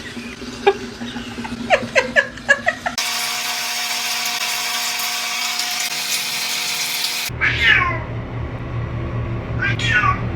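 Domestic cat meowing: a few short chirping calls in the first seconds, then two drawn-out falling meows in the second half. About three seconds in, a steady rushing hiss starts, and it cuts off abruptly some four seconds later.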